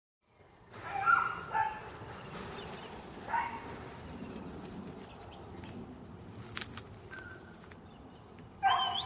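A dog barking and yelping: a few short barks about a second in and again after three seconds, then a rising yelp near the end.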